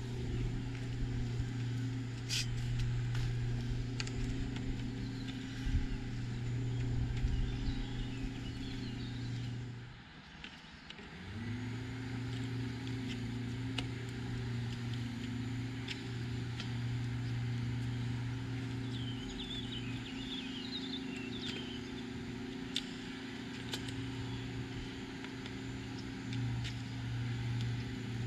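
A steady low motor hum, with light clicks and a few bird chirps over it; the hum drops out briefly about ten seconds in.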